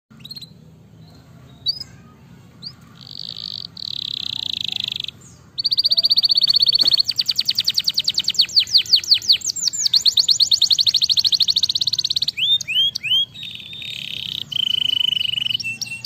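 Domestic canary singing: a few scattered chirps, then a long song of fast trills and rolls of rapidly repeated rising notes, with a few sweeping notes and a steady held note near the end.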